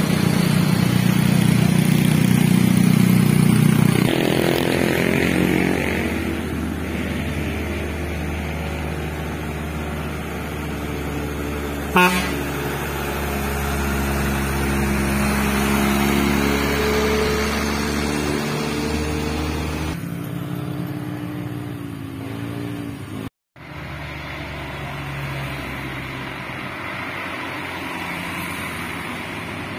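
Heavy diesel engines of buses and a truck labouring up a steep grade as they pass, the sound changing abruptly between short clips. In one stretch the engine pitch climbs steadily as the vehicle pulls uphill. A single sharp knock comes about twelve seconds in.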